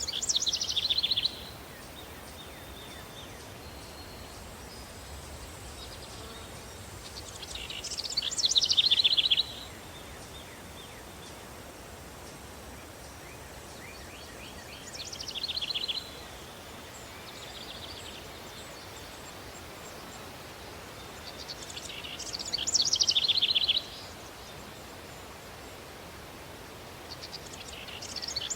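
Songbird singing a short, rapid, downward-sliding trilled phrase about every seven seconds, five times, over a steady outdoor ambience hiss.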